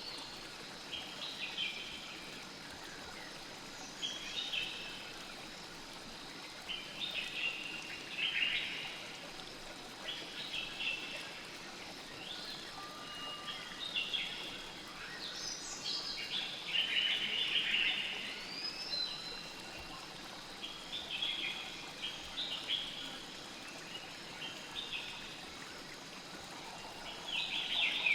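Steady flow of a river or stream, with songbirds chirping in short phrases every couple of seconds. The chirping grows louder near the end.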